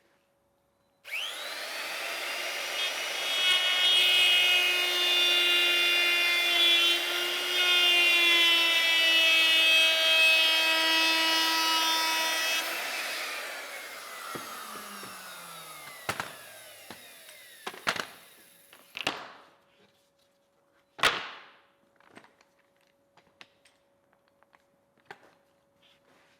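Router starting about a second in and cutting a roundover along an MDF strip for about ten seconds. It is then switched off and its whine falls away as it spins down. A few knocks and one sharp thump follow.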